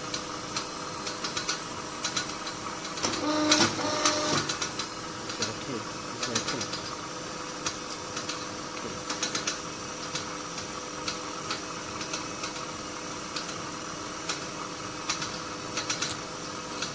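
Steady electrical hum of workshop machinery, with scattered small metallic clicks and taps as metal shower-hose fittings are handled. A louder, busier stretch comes about three to four and a half seconds in.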